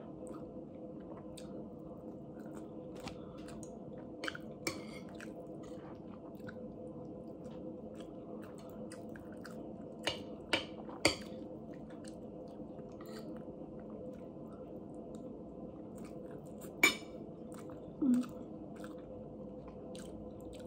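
A person chewing a mouthful of spicy ribs and rice, with a spoon clinking sharply against the plate a few times: twice around the fourth second, three times near the middle, and once more, loudest, later on. A steady hum runs underneath.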